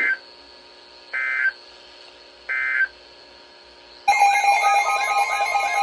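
Three short bursts of EAS (SAME) end-of-message data tones from a NOAA Weather Radio broadcast, about a second apart, marking the end of the alert message. About four seconds in, a loud electronic alert alarm starts abruptly, with steady tones and a warble that repeats more than once a second.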